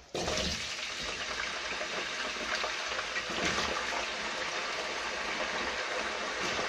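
Raw julienned potatoes dropped into hot frying oil, setting off a sudden burst of sizzling that settles into a steady, even frying hiss; the oil is at frying temperature.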